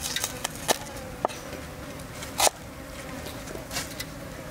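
A cleaver chopping red onion on a wooden chopping board: a handful of separate, irregular knocks, the loudest about halfway through. Under them runs a steady buzz of flying insects.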